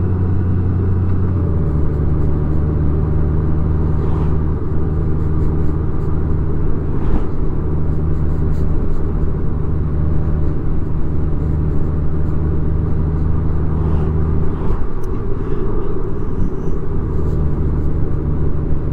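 Large touring motorcycle's engine running steadily at cruising speed, heard from the rider's seat with wind and road noise. The engine note drops slightly about a second and a half in and wavers briefly about fifteen seconds in.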